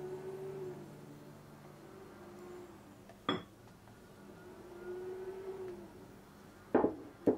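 A silicone spatula and a second bowl knocking against a glass mixing bowl as meringue is scraped into chocolate cake batter: one sharp clack about three seconds in and two more close together near the end.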